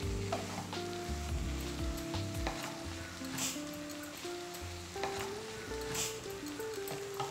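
Prawns and brinjal sizzling as they fry in a nonstick pan, a wooden spatula scraping and stirring through them. Soft background music with held notes plays underneath.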